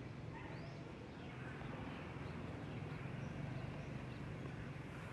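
Quiet outdoor ambience: a few faint, short bird chirps over a low steady hum.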